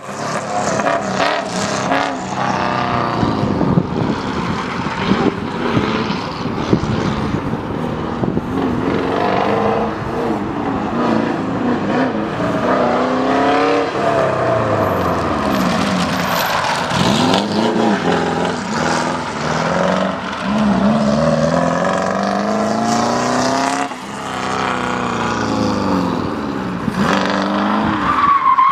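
Engine of a Toyota Tom's 83C replica Group C race car revving up and falling back again and again through a gymkhana run, its pitch climbing and dropping every few seconds.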